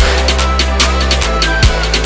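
Background music: electronic drum-and-bass style track with a heavy sustained bass and a steady drum beat.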